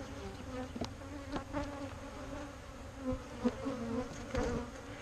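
Honeybees buzzing around an opened hive, a wavering drone that swells as bees fly close past the microphone. A few light clicks are heard among the buzzing.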